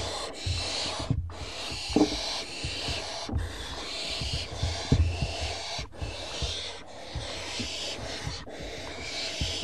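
Barn owl nestlings giving their hissing, snore-like begging calls: a run of long rasping hisses a second or two each, with short breaks between them. Soft low thumps of the owls moving in the nest box sound under them.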